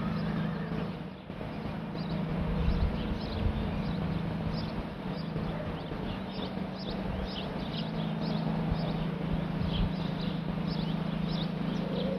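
Small birds chirping, many short quick high chirps repeating throughout, over a steady low hum and a rumble of wind on the microphone.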